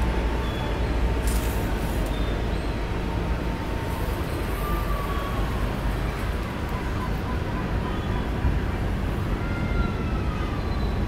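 Steady low rumble of outdoor city background noise, like distant traffic, with a few faint thin whistling notes over it.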